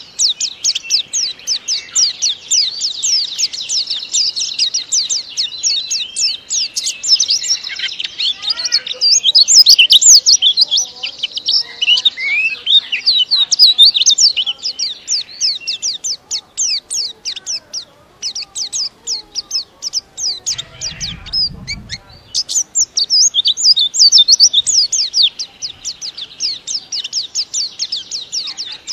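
White-eye (pleci) singing a long, fast song of rapid, tightly packed high chirping notes. The song eases off for a few seconds past the middle, then resumes at full pace.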